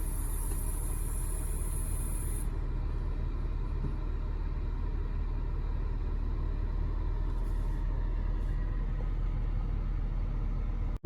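2004 BMW 325ci's 2.5-litre straight-six running with a steady low rumble.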